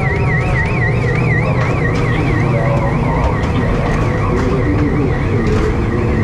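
An electronic warbling alarm tone, wavering up and down several times a second like a siren, sounds continuously over a loud, steady low rumble of ride machinery and fairground noise.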